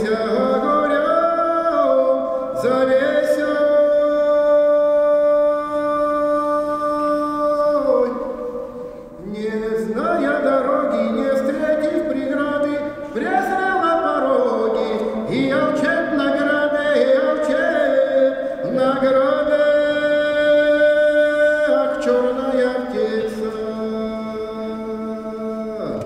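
A man singing unaccompanied in slow, drawn-out phrases, holding single notes for several seconds, with a brief break about nine seconds in.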